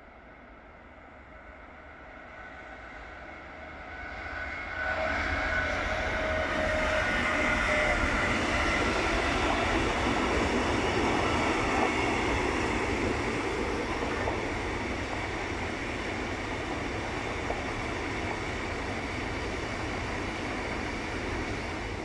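Freight train of hopper wagons passing on the main line: growing louder as the locomotive approaches, loudest from about five seconds in, then a steady rumble and rolling of the wagons on the rails.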